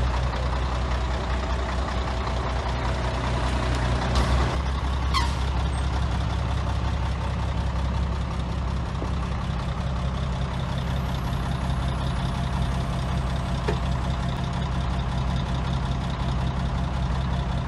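Heavy diesel machinery running steadily with a deep, even engine drone. About four to five seconds in there is a short hiss and a brief falling squeal.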